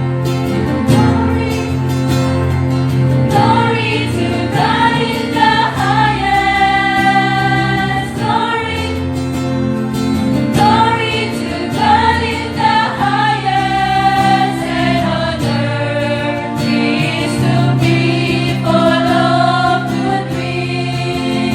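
Church choir singing in parts, with steady low accompanying notes held underneath.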